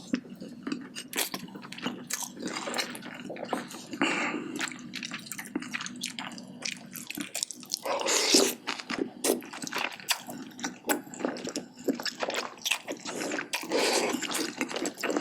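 Close-miked chewing of a mouthful of rice and spicy braised chicken (jjimdak): wet smacks and small clicks, with one louder wet sound about eight seconds in.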